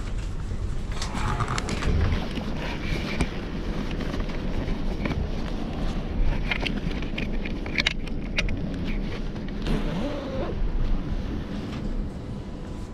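Passenger train running, heard inside the carriage: a steady low rumble, with a run of sharp clicks and clacks from the wheels over the track about six to eight seconds in.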